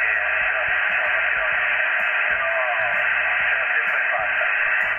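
Yaesu FT-857D transceiver's speaker playing single-sideband reception on the 40-metre band (7.082 MHz LSB): a steady hiss of static and interference cut off above about 3 kHz, with faint, garbled voice fragments wavering through it. The heavy noise is the band interference (QRM) on the air that day.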